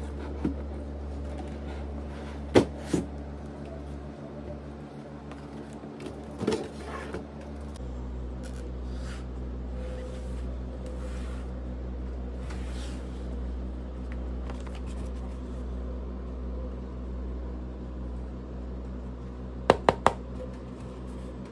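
Cardboard packaging of a Hot Toys collector figure being handled as the box is opened: soft sliding and scraping as the inner box moves against its sleeve, with a few sharp knocks of cardboard, two close together about two and a half seconds in and three quick ones near the end. A steady low hum runs underneath.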